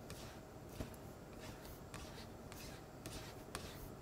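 Wooden scraper pushing hot boiled potato through the mesh of a drum sieve (tamis). Faint, repeated scraping strokes with a few light knocks, about six in four seconds.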